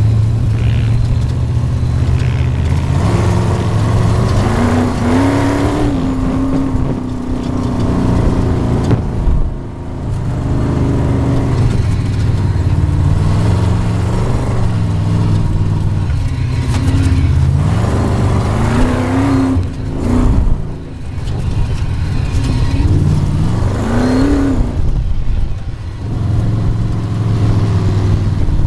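Sand rail dune buggy engine heard from on board, running hard across sand: it revs up several times and briefly eases off twice.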